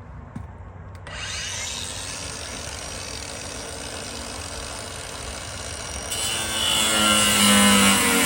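Power tool cutting into rusted, Bondo-patched car body sheet metal. It starts abruptly about a second in and then runs steadily with a harsh, hissing grind. About 6 seconds in it gets louder, and steady tones join it.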